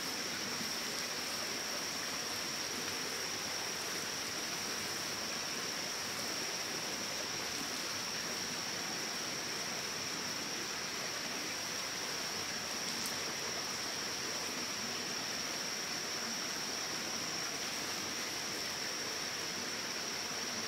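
Steady rush of flowing water, as of a stream, with a steady high-pitched whine over it.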